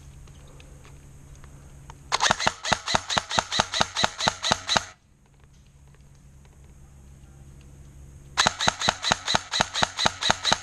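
Airsoft gun firing two strings of rapid shots, about six a second: one lasting nearly three seconds beginning about two seconds in, and a second starting about eight seconds in and running to the end.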